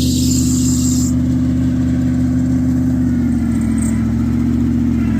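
Old Ford F-150 pickup's engine running steadily, its pitch easing slightly a few seconds in. A high hiss over it stops about a second in.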